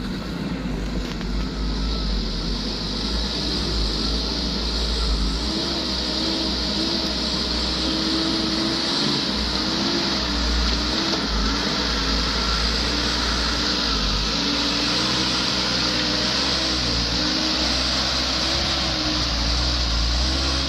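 Mitsubishi Fuso dump truck's diesel engine labouring up a steep climb as the truck approaches and passes close by, its note wavering up and down under load over a deep rumble. A steady high hiss runs behind it.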